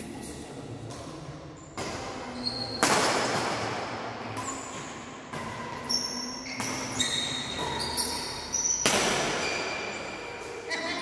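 Badminton doubles rally: irregular sharp racket strikes on the shuttlecock and players' footwork on a tiled floor.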